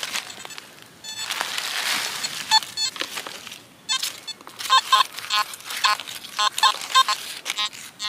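Soil and dry leaves rustling, then a metal detector giving a string of short, repeated beeping tones as its coil sweeps over the dug hole: it is still signalling a metal target, which the detectorist is unsure comes from fragments of the tin can just removed.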